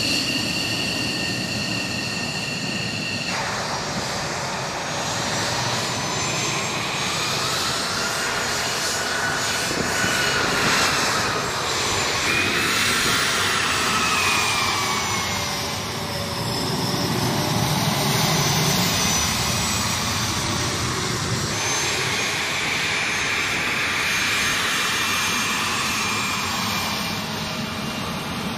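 Military jet engines at taxi power. First an F-15J Eagle's engines with a steady high whine. From about three seconds in, A-10 Thunderbolt II turbofans with whine tones that slowly rise and fall.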